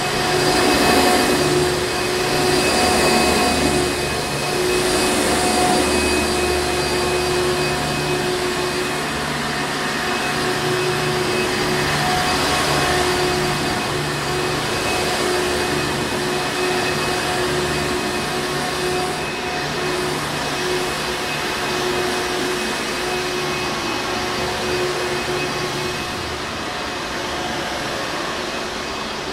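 Hoover Encore Supreme vacuum cleaner running steadily: a constant motor whine over the rush of air, swelling slightly a few times in the first seconds.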